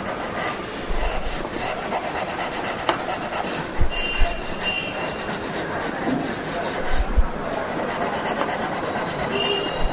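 Graphite pencil scratching across drawing paper in quick, repeated sketching strokes, with a few soft low thumps.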